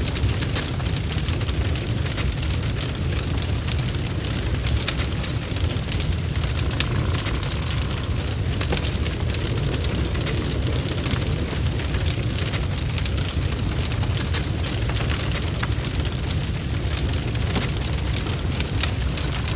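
Bonfire crackling: a steady low rumble of the flames under dense, irregular snaps and pops.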